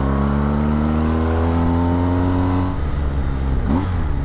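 A BMW adventure motorcycle's engine pulling in gear, its pitch rising slowly, then easing off about three seconds in as the throttle is closed. Wind rumbles over the microphone throughout.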